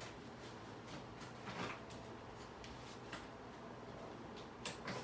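Faint rustling and crinkling of the plastic wrapping on a rolled memory foam mattress as it is handled, with a brief louder rustle about a second and a half in and a couple of sharper crinkles near the end.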